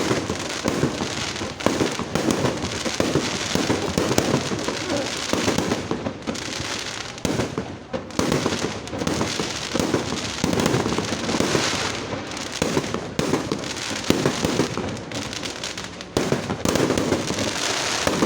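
Fireworks going off in a continuous barrage of rapid bangs and crackling pops, with a brief lull a little past the middle.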